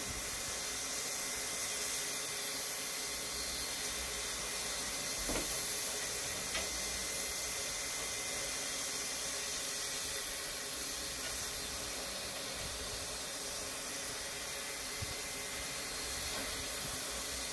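Water rushing from a water-tower spout into the tank of narrow gauge steam locomotive WW&F #9, mixed with steam hissing from the locomotive; a steady, even rush of noise.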